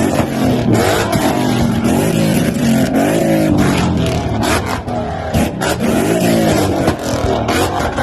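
Performance car engine revving hard, its pitch climbing and dropping again several times, with short sharp cracks and pops between the revs.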